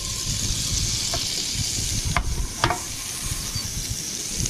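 Melted butter sizzling in a frying pan on a portable gas stove, a steady frying hiss, with a few light clicks about one to three seconds in.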